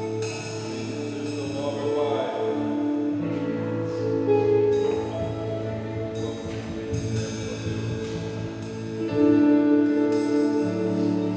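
Keyboard playing slow worship music: held chords over a steady bass, with bright bell-like notes struck now and then that ring and fade.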